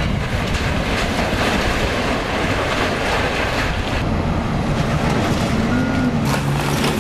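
A John Deere hydraulic excavator's diesel engine running as it tears into a building, with the crunch and scrape of wall debris breaking and falling.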